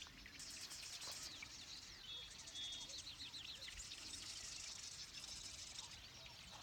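Marsh wrens chattering: faint, rapid rattling trills high in pitch, two main bursts in the first four seconds, over a faint steady background.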